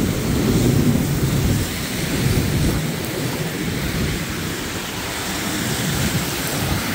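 Heavy thunderstorm rain pouring down in a steady roar of noise. A low rumble sits under it, heaviest for the first three seconds, then easing off.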